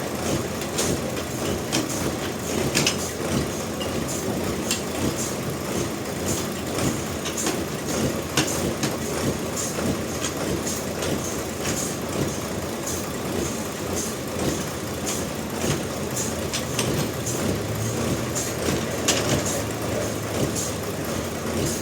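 Sawmill machinery running with a steady rumble and frequent knocks and clatter.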